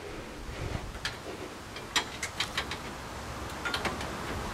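Hand tools clicking and clinking against the truck's metal deck plate and an air-line fitting: a scattered run of short, sharp metallic clicks, loudest about two seconds in, with a few more just before the end.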